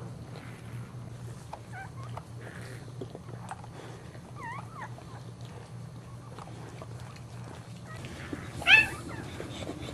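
Newborn boxer puppy squeaking: a few faint high squeaks, then one loud, short squeal near the end.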